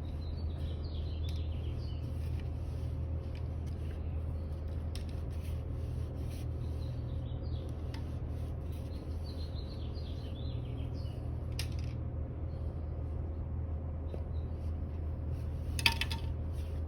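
A rag rubbing and scraping on a funnel as it is wiped clean before new engine oil is poured, with a few light clicks, over a steady low hum.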